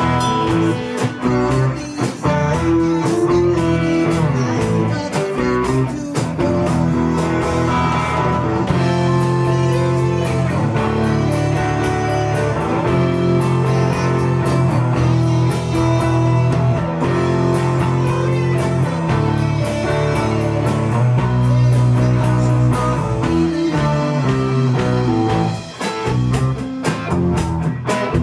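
Live band playing: electric guitars over drums.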